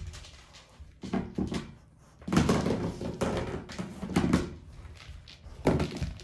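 A dog pushing a molecule-ball treat dispenser around the floor: the toy knocks and rattles in several bursts, kibble spilling from it.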